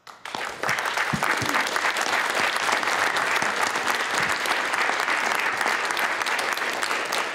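Audience applauding steadily, a dense patter of many hands clapping that starts abruptly and holds at an even level.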